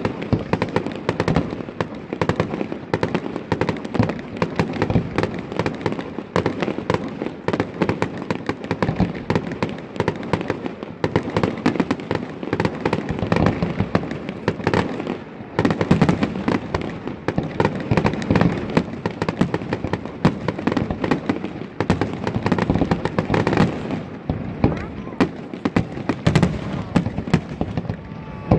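Fireworks display: a dense, unbroken run of bangs and crackling, with shells going off several times a second.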